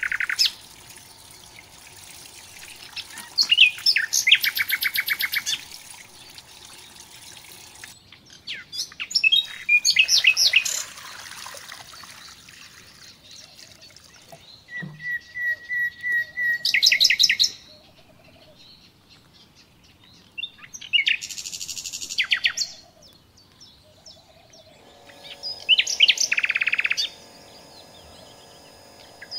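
A songbird singing five short phrases, each a quick run of high repeated notes, about five to six seconds apart.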